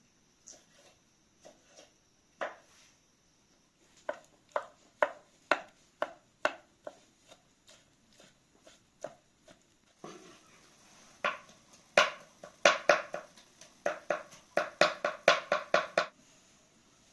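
A knife chopping food on a cutting board: a few scattered strokes at first, then runs of quicker chops, fastest and loudest in the last few seconds before they stop.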